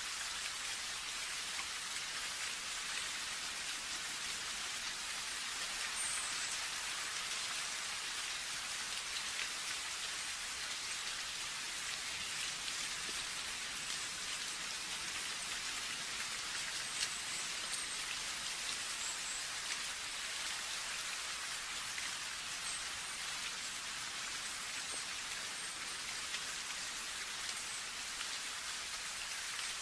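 Steady rain falling, an even hiss of many fine drops with small scattered ticks of individual drops.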